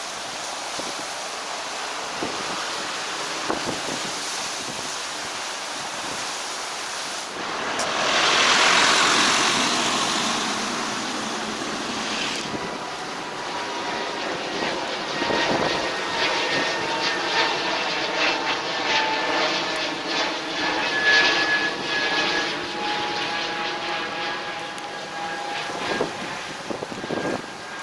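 Aircraft flying low overhead: a rushing noise swells to its loudest about eight seconds in, then engine whine with steady tones carries on for over ten seconds before fading.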